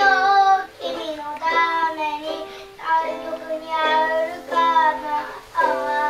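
A child singing the chorus of a pop ballad in phrases, over sustained chords from an instrument played along.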